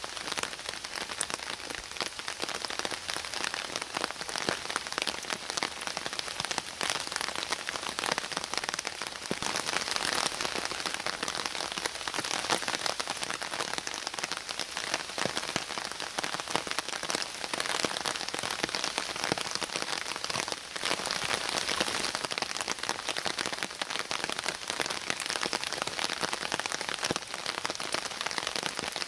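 Steady rain shower falling in woodland, many individual drops striking leaves and the wet ground.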